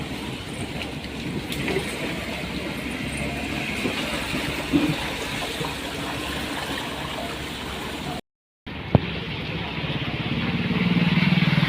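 Road traffic with vehicle engines running. There is a brief dropout about eight seconds in, and an engine hum grows louder near the end.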